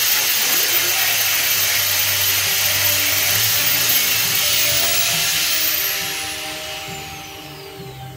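A loud steady hiss with a very high-pitched whine on top, like a machine running, that winds down about six seconds in: the whine falls in pitch as the hiss fades. Soft music comes in during the second half.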